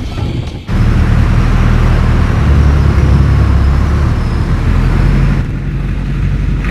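Motor vehicle engine and road noise, a loud steady low rumble that cuts in sharply just under a second in and eases a little near the end.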